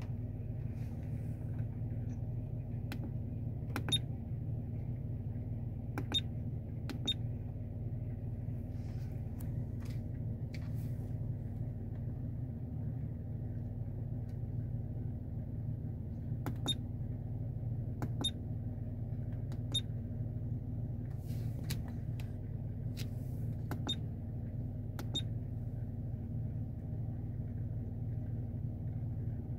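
Steady low rumble of a car engine heard inside the cabin, with a dozen or so sharp short clicks scattered through, from the buttons of a mirror-mounted dashcam being pressed.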